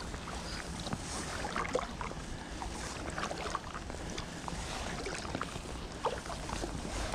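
Double-bladed kayak paddle stroking through calm canal water: steady sloshing with scattered drips and small splashes from the blades as they dip and lift.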